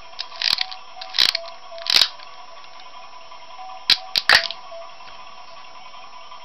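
Sharp plastic clicks from a toy wrist launcher's mechanism being worked and fired: three clicks spaced under a second apart at the start, then a quick run of three about four seconds in.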